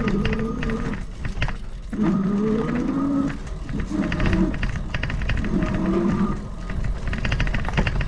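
Bike rattling and clicking over a rough, leaf-covered dirt trail, with a pitched drone that rises and falls in stretches of about a second.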